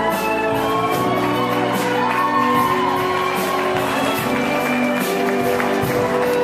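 Music with a steady beat and held notes.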